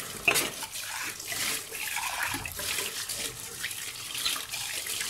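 Kitchen tap running into a steel sink, the stream splashing over a cup and dishes as they are rinsed by hand, with a sharp knock of crockery near the start.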